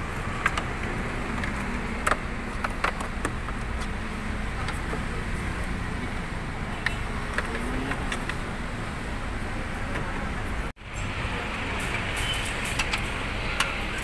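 Steady background noise with a faint low hum, broken by scattered light clicks and knocks as the dashboard's plastic trim and wiring are handled. The sound cuts out for an instant about eleven seconds in.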